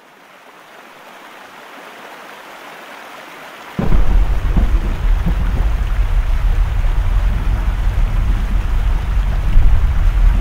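Rain fading in, then a sudden thunderclap about four seconds in, followed by heavy rain over a deep, ongoing rumble of thunder.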